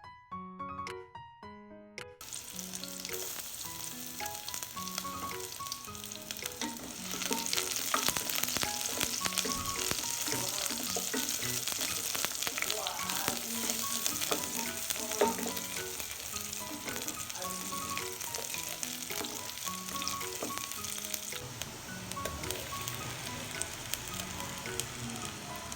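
Food frying in hot oil in a pan: a steady sizzle full of fine crackles, starting about two seconds in and growing louder from about seven seconds in, with background piano music underneath.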